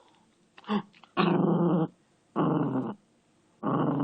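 Pet dog giving a string of goofy, playful growls: a short one just under a second in, then three longer growls, each under a second, with pauses between them.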